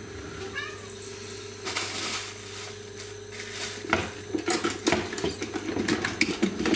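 Clatter of kitchenware being handled at a gas stove: scattered knocks at first, then a quick run of sharp clicks and knocks from about four seconds in, over a steady hum.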